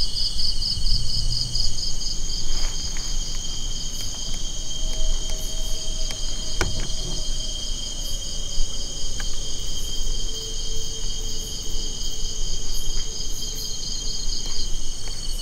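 Chorus of insects, several steady high-pitched buzzes layered with a fast, even pulsing trill, with a few faint knocks among them.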